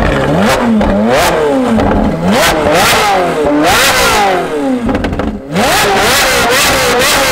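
Ferrari 458 Speciale's 4.5-litre V8, with an F1 exhaust, revved while standing still: a string of quick rev blips, each rising and falling in pitch, with sharp cracks from the exhaust as the revs drop. A little past halfway the revs drop off briefly, then the engine holds a higher, wavering rev.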